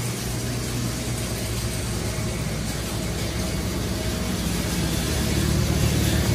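Farm tractor engine idling steadily, a low hum that grows louder over the last second or two.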